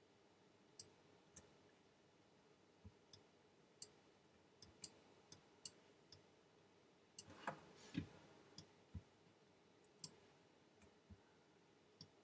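Faint, irregular computer mouse clicks, about fifteen in all, as spline points are placed one by one. A little past halfway comes a louder knock with a brief rustle, the loudest sound here.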